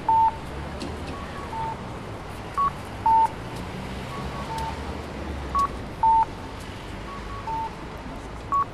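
Japanese audible pedestrian signal sounding its electronic cuckoo call, a short high note dropping to a longer lower one, about every three seconds. In between, a fainter answering call with two quick high notes comes from the other speaker. The call tells visually impaired pedestrians that the walk light is green.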